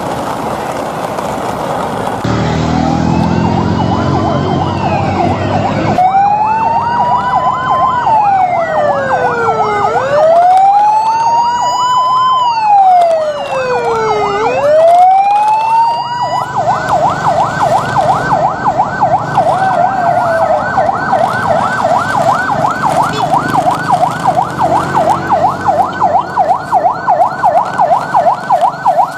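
Electronic siren wailing slowly up and down in pitch, with several siren tones overlapping. About two-thirds of the way in it switches to a fast, rapidly repeating yelp.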